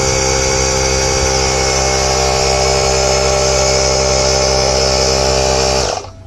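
McGraw 3-gallon oil-free pancake air compressor running steadily under load, then shutting off about six seconds in.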